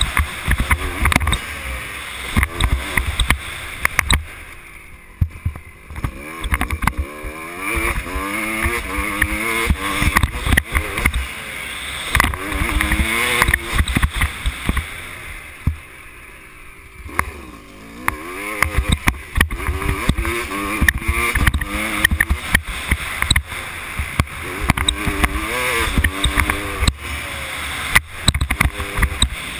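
Dirt bike engine ridden hard, its pitch rising and falling as the rider works the throttle and gears, over heavy wind buffeting on the microphone and knocks from the bumps. Twice the throttle closes and the engine drops low and quieter, about four seconds in and again about sixteen seconds in, before revving back up.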